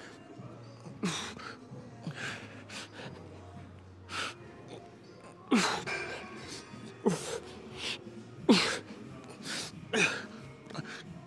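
A man's forceful exhalations and short grunts, one with each rep of a high-rep dumbbell rear-delt fly set. They come roughly every second and a half, each falling in pitch, and get louder in the second half as fatigue builds. Background music plays underneath.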